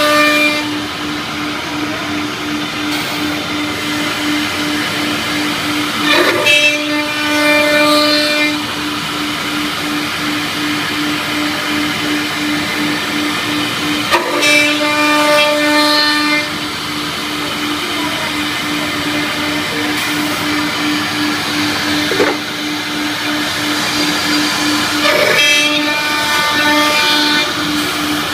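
CNC drilling machine running with a steady hum. Four times it rises to a louder, higher whine that lasts a second or two.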